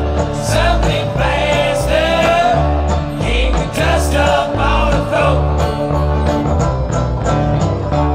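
Bluegrass-style string band music, with an upright bass playing a steady line of low notes under plucked strings and a melody.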